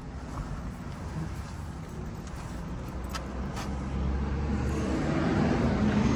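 Low, steady rumble of a car idling, with a couple of sharp clicks about three seconds in as the car door is opened. The rumble grows louder in the last couple of seconds.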